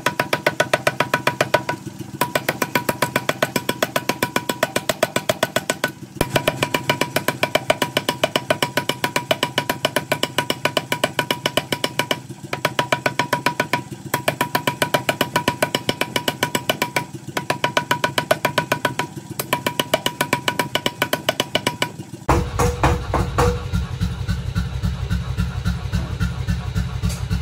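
Power hammer pounding hot knife steel cut from a cannon barrel: rapid, evenly spaced ringing blows in runs of a few seconds with short pauses between them. Near the end the blows turn deeper and heavier, then stop suddenly.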